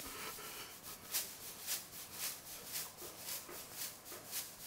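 Wooden spoon scraping and stirring toasted breadcrumbs across a metal sheet pan, in short, even strokes about two a second.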